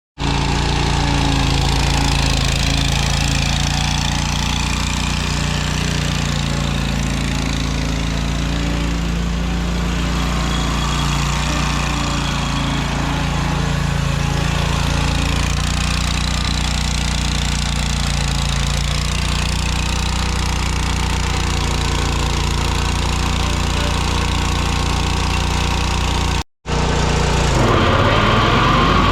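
John Deere M655 zero-turn mower's engine running steadily. After a brief break near the end, the engine speeds up, its pitch rising.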